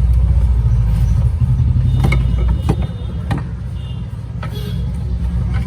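Low, steady rumble of a road vehicle's engine running close by, loudest over the first two or three seconds and then easing. A few sharp clicks are scattered through it.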